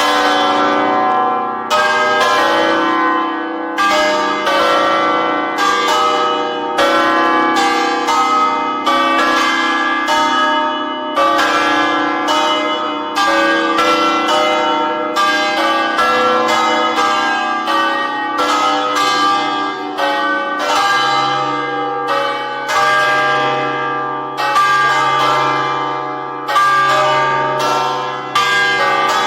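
Church bells of the Leaning Tower of Pisa ringing close up from the top of the tower, with strokes coming roughly once a second, each new stroke sounding over the ringing of the last. A deeper tone joins about two-thirds of the way in.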